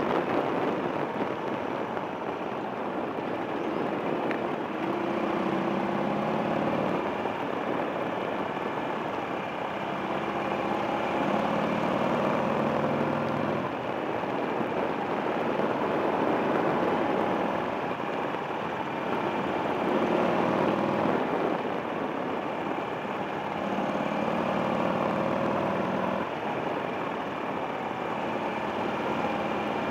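Buell XB9SX's air-cooled V-twin engine under way, picked up by a camera on the handlebar. Its pitch rises and then drops back several times as the throttle is opened and closed, over a steady rush of wind and road noise.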